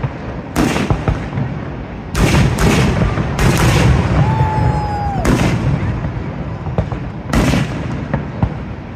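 Fireworks bursting overhead: about five booming bangs, two of them close together, over a continuous rumble, with a short steady whistle for about a second around the middle.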